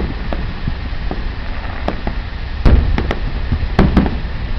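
Aerial fireworks shells bursting: a series of irregular bangs, the loudest about two and a half seconds in, over a steady low rumble.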